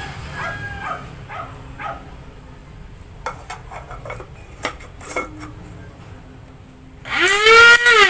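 Small electric blade coffee grinder with a stainless-steel cup, loaded with a little rice, being switched on by pressing its lid. A few light clicks come as the lid is fitted, then about seven seconds in the motor starts loudly with a whine that rises steeply in pitch as it spins up and then holds.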